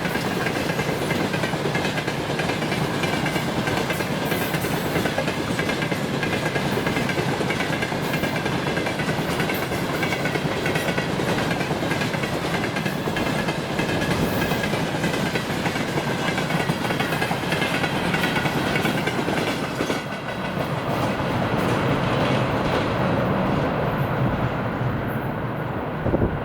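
Freight train wagons rolling past, their wheels giving a steady clickety-clack over the rail joints with a thin high whine over it. About twenty seconds in the sound thins and eases as the train moves on.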